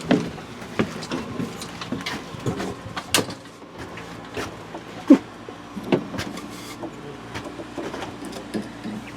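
Irregular knocks, taps and light scrapes of a thin luan plywood panel being handled and pushed into place, the loudest knock about five seconds in.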